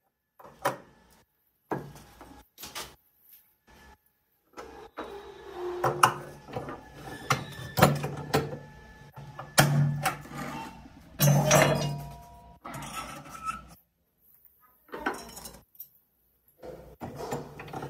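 Metal spin-dryer motor parts (wound stator, steel housing, shaft) clinking and knocking against each other and the steel bed of a hand press as they are fitted together. Scattered knocks with short metallic rings, busiest in the middle stretch, with dead-quiet gaps between them.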